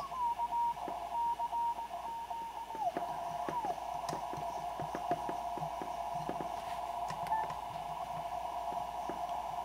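Receiver audio from a Yaesu FT-891 HF transceiver in CW mode with its narrow filter, as the dial is tuned across the 80-metre band. It gives a narrow band of hiss with scattered clicks. A single tone slides into pitch, holds with brief breaks for about three seconds, then slides away. There is no whine or birdie from the switching power supply: it runs clean.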